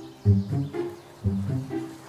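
Background music: short, low pitched notes played in a repeating phrase.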